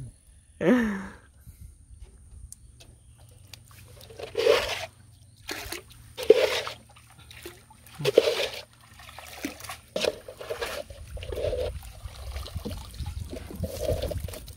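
Water splashing and streaming off a cast net as it is hauled up out of the water, in several splashy bursts a second or two apart.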